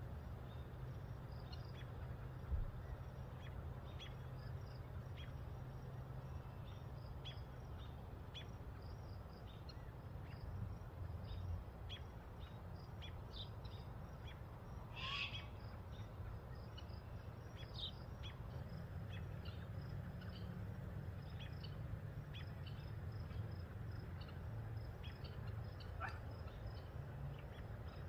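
Quiet outdoor ambience: a steady low rumble with scattered short, high chirps and ticks. About halfway through comes one brief, hissing, rasping call, and near the end a thin rising call.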